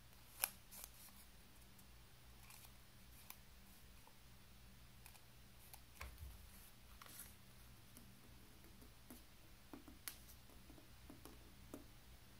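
Thin patterned paper being folded and creased by hand: faint, scattered crinkles and taps, the sharpest about half a second in.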